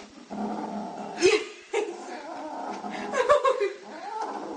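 Kitten growling and yowling in a wavering drawn-out voice while gripping and biting a piece of food, the sound of a kitten guarding its food. A few sharp clicks come through.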